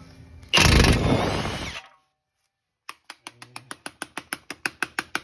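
A power tool runs in one loud burst of about a second, then a ratchet clicks rapidly and evenly, about eight clicks a second, as a 17 mm socket works loose the outer tie rod end nut.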